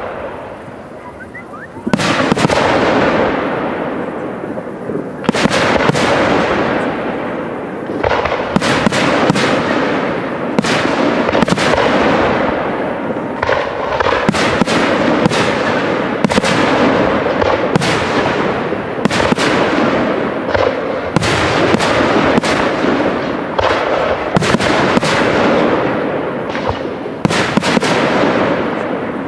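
Aerial fireworks display: after a quieter first two seconds, a dense run of shell bursts, sharp bangs coming several a second, each trailing off in an echo.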